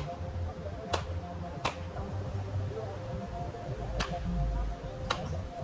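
Baseball bat striking pitched balls: four sharp cracks a second or more apart, over a steady low rumble.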